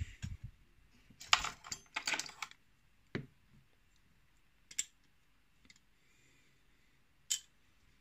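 Small metal lock parts and tools clicking as they are handled on a work mat: a quick cluster of clicks just over a second in, then single sharp clicks about every two seconds.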